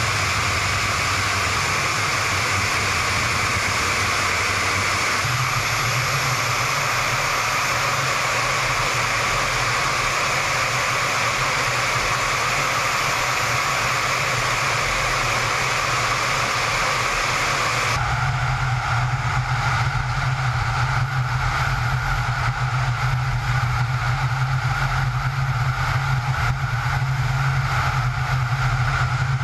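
Steady jet engine and airflow noise inside a Su-33 fighter's cockpit in flight: a constant hiss over a low hum. About two-thirds of the way through, the sound turns deeper, with less hiss.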